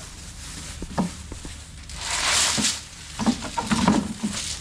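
Live lala clams being tipped from a plastic basket into a plastic bag. A few sharp shell clicks come first, then a rushing rustle of the bag about two seconds in, then a run of shells clattering near the end.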